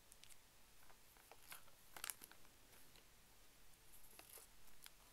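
Faint rustling and small clicks of paper as the pages of a school exercise book are handled and turned, the loudest rustle about two seconds in.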